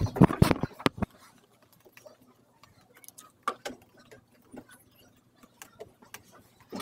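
A loud burst of rustling and knocks in the first second as the camera is handled, then a ballpoint pen making short, quiet scratching and tapping strokes on notepad paper.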